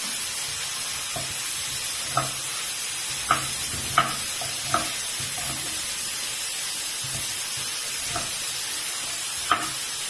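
Steady sizzle of tomato, garlic and onion frying in a pan, with a few sharp knife chops on a wooden cutting board as chayote is diced, most in the first half and one near the end.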